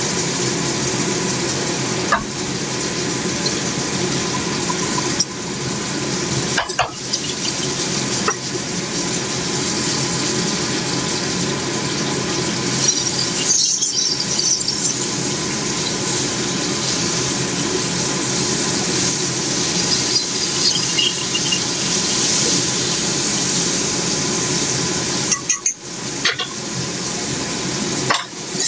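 Food sizzling in a hot pan as it is stir-fried: a steady hiss broken by a few light knocks of the utensil against the pan.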